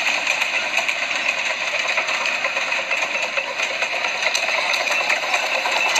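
Miniature railway train running past: a steady mechanical rattle and clatter.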